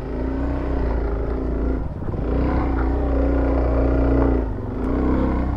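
Suzuki DRZ400S single-cylinder four-stroke engine running under throttle on a muddy trail. The throttle eases off briefly about two seconds in and again near the end, and the engine picks back up each time.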